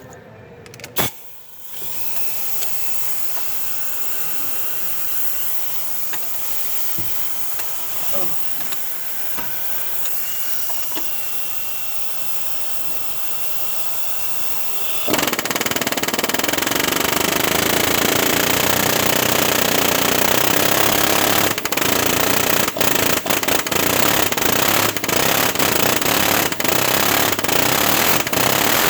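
Steady mechanical running noise that steps up sharply to a much louder level about halfway through, with a few brief dips near the end.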